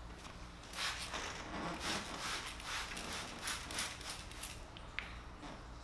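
Trigger spray bottle squirting slip solution in a quick series of short hissing sprays, about two or three a second, wetting the underside of paint protection film lifted off a headlight so it can be slid into place. A single click follows near the end.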